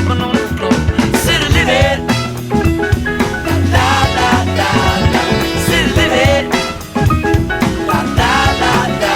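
Upbeat pop song with a steady drum beat and a sung melody line.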